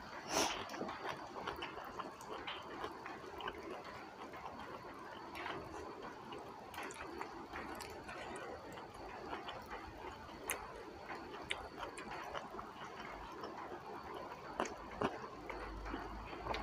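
A person chewing a mouthful of food, picked up close by a clip-on microphone, with scattered small wet clicks and mouth sounds. Now and then comes the soft rustle of fingers picking food off a banana leaf.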